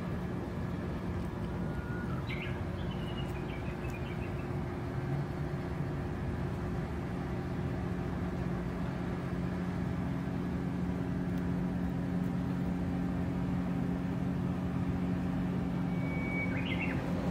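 A steady low machine hum, with a bird chirping briefly about two seconds in and again near the end.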